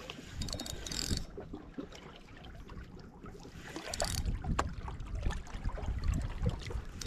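Wind buffeting the microphone in a low, uneven rumble, with scattered faint clicks and two brief hissy crackles, about a second in and about four seconds in.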